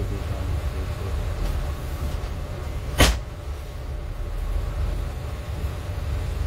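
Interior of a Greyhound coach under way: a steady low rumble from the engine and road, with one sharp knock about three seconds in.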